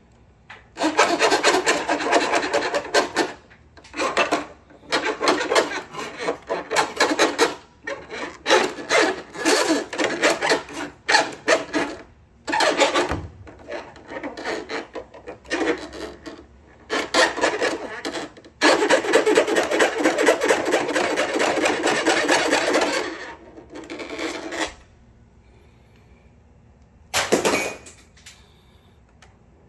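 Rasping, rubbing strokes, in runs of one to four seconds separated by short pauses; they stop about 25 seconds in, leaving one short scrape near the end.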